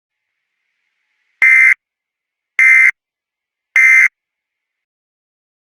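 Emergency Alert System end-of-message tones: three identical short bursts of SAME digital data, each about a third of a second long and about a second apart, signalling the end of the alert.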